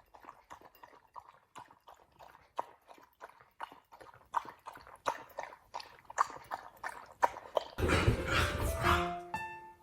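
A dog making quiet, irregular clicking and tapping sounds, several a second. Background music comes back in loudly near the end.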